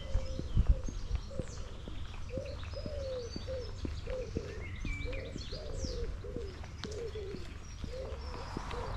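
Pigeon cooing in a long run of short, arching notes, about two a second, with other birds chirping higher up over a steady low rumble.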